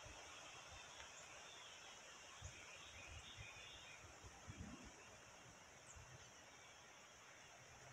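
Faint outdoor ambience, near silence: a steady high-pitched hiss with a few faint bird chirps and a couple of soft low thumps.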